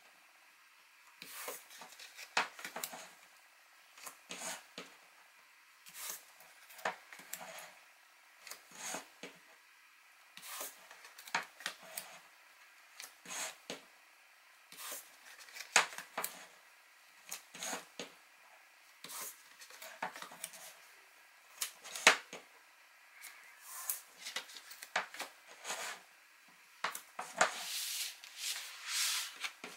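Double-sided score tape being pulled off its roll and pressed along the edge of cardstock, along with paper being handled: a run of short, irregular crackles and rustles, a little busier near the end.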